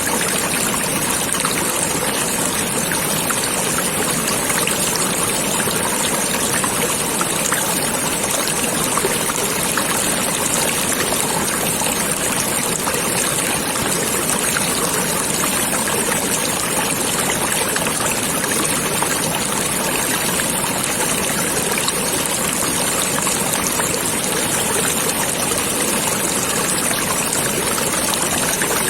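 Flowing stream water babbling and trickling steadily.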